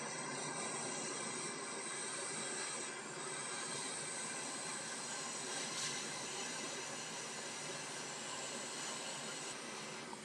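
Hot air rework station blowing a steady hiss of hot air from its nozzle onto a laptop motherboard chip, drying off the water used to wash away liquid damage.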